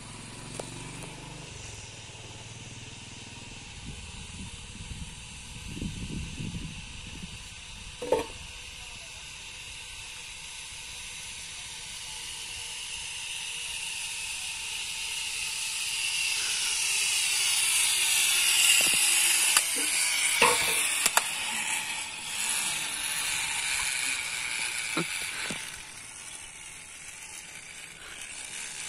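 Zip line trolley's pulley wheels running along the steel cable as a rider slides down: a hissing whir that builds over several seconds, peaks, then fades, with a few sharp knocks.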